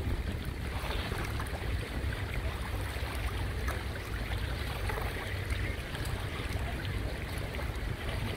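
Choppy seawater sloshing and lapping close by, with a steady low wind rumble on the microphone.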